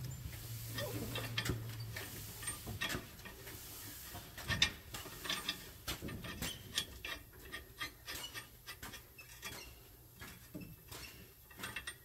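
Light, irregular metallic clicks and clinks of nuts and washers being handled and threaded by hand onto a steel U-bolt on the tie rod. A low steady hum stops about two seconds in.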